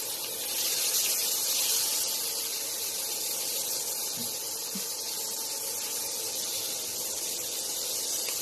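Butter sizzling as it melts in a hot stainless steel pan, a steady hiss.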